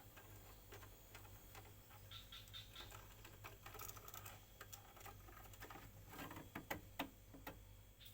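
Faint scattered clicks and light taps over a low steady hum, with a few sharper knocks about six and a half to seven and a half seconds in.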